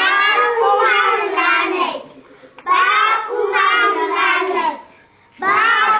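A group of children chanting a phrase loudly in unison, twice, with a third chant starting near the end: lines of a repeated tabarra curse chant.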